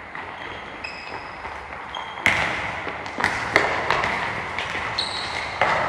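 Soccer balls being kicked and bouncing: a few sharp, echoing thuds, the first a little over two seconds in, with brief high squeaks between them.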